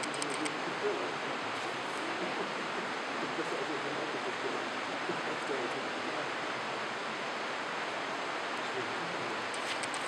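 Steady rushing noise of water at the floor of a limestone abyss, with faint voices murmuring underneath.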